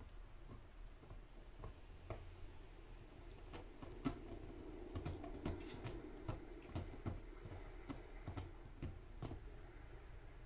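Kittens' paws and claws tapping and scratching on cat towers: faint scattered light taps, with a sharper knock about four seconds in and a busier stretch of scratching and rustling for a few seconds after it.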